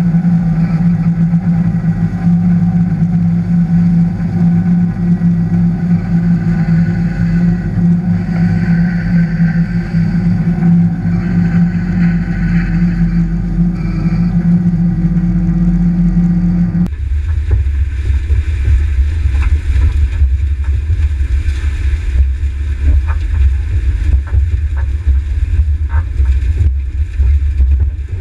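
Tractor pulling a no-till manure injector through corn stubble: a steady engine hum with the noise of the implement working. About two-thirds of the way through the sound changes suddenly to a deeper rumble with scattered faint ticks.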